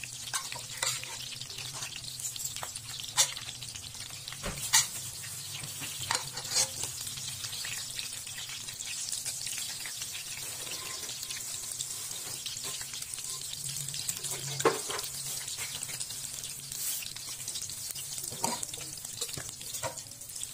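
Vietnamese spring rolls shallow-frying in hot oil in a pan, a steady sizzle. A handful of sharp clicks and pops stand out as the rolls are turned with wooden chopsticks, over a low steady hum.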